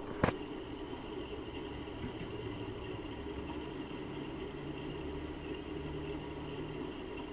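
Steady low mechanical hum with background noise, with one sharp click about a quarter of a second in.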